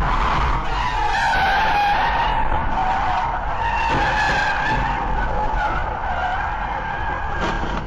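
Car tyres squealing in one long, wavering screech as a car skids on the highway, over steady road noise, with a couple of short knocks near the middle and near the end.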